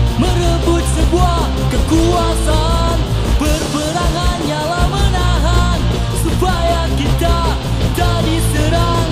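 Punk rock song playing: a singer's voice over a full band with guitar, loud and steady throughout.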